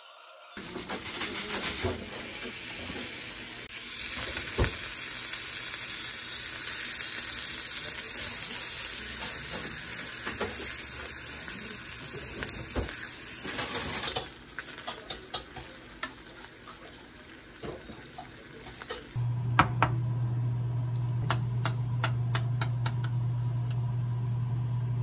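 Sliced duck sizzling loudly in a frying pan while it is turned with wooden chopsticks. The sizzle stops about halfway through, leaving light clicks of utensils and dishes; a few seconds later a steady low hum comes in, with a run of sharp clicks.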